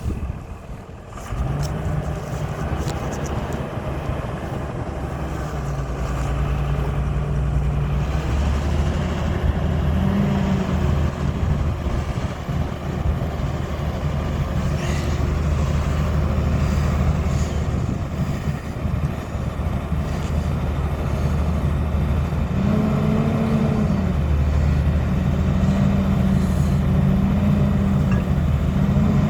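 2004 John Deere 230C LC excavator's diesel engine running. It comes in louder about a second in, and its pitch rises and falls in short swells several times.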